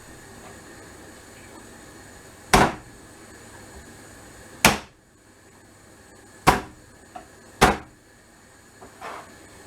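Four loud, sharp knocks, one every second or two, as a head of garlic is broken up by striking it against a hard kitchen surface.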